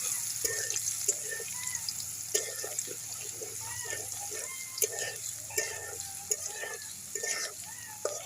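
Water splashing and sloshing, with many irregular small plops and clicks over a steady hiss.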